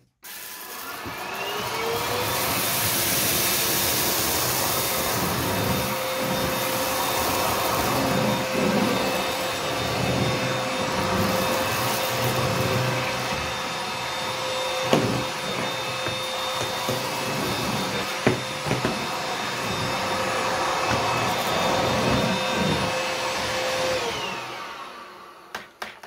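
Raven EOR001 100-watt cordless stick vacuum running in turbo mode while picking up scattered rice and dust. Its motor whine rises as it spins up, holds steady with a couple of sharp clicks, then falls away as it is switched off near the end.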